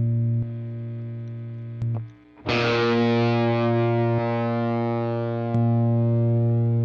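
A sustained guitar note run through an equalizer. Its lowest band, around 110 Hz, is switched off about half a second in and back on about 5.5 s in, with a faint click at each switch. The note is struck again about 2.5 s in.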